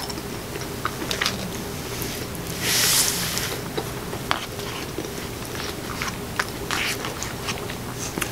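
Eating at close range: a fork clicking and scraping in a bowl of food, with chewing and a brief rustling noise about three seconds in, over a faint steady hum.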